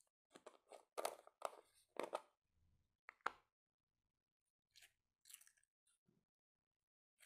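Fingers pressing and poking into white slime packed in a small plastic bottle, making a string of short crackly, sticky squishes. They come thickly in the first two seconds, then a few more follow sparsely.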